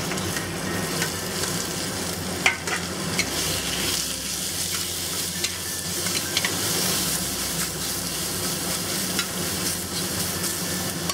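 Peeled shrimp and minced garlic sizzling steadily in hot oil in a stir-fry pan, stirred with a spatula that clicks and scrapes against the pan every second or two.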